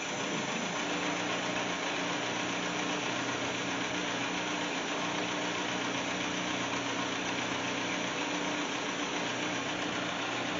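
Series One Land Rover four-cylinder petrol engine idling steadily, freshly rebuilt and newly started. It runs evenly, though the owner thinks the ignition timing is slightly out because it won't quite rev out.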